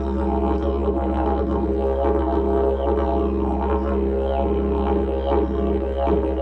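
Didgeridoo playing a continuous low drone, its overtones shifting in a quick, steady rhythm.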